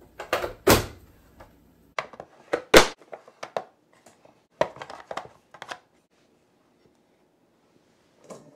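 Sharp plastic clacks and knocks of a press-down vegetable chopper as it dices green bell peppers, its lid slapping down through the blade grid and being opened again. The knocks come in a busy run for about six seconds, the loudest about three seconds in, followed by a pause and one light knock near the end.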